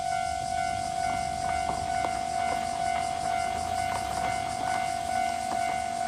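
Japanese railroad crossing signal's electronic warning bell ringing steadily, the 'kan-kan' of a crossing in its warning cycle, with a low rumble and scattered clicks underneath.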